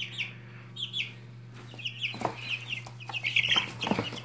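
Young chicks, almost three weeks old, peeping: many short, high, falling chirps in quick succession. A steady low hum runs underneath, and a couple of soft knocks come around the middle and near the end.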